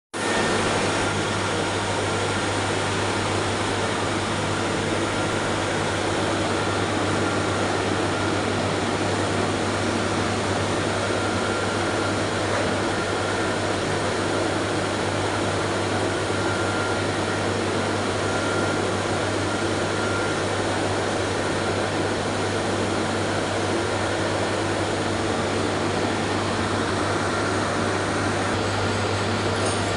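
Ecogrind RX5 Neo CNC tool grinding machine running steadily, a constant mechanical whir with a strong low hum and a faint high tone.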